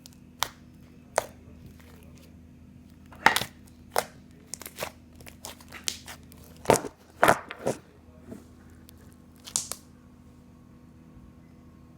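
Crunchy slime being squeezed and pressed, giving a dozen or so irregular sharp crackles and pops.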